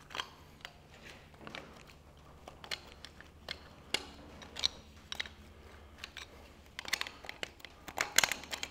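Spanners clicking and clinking on small nuts and the rocker gear as an oil tray is unbolted from an old engine's cylinder head: scattered light metallic clicks, with a quick flurry near the end.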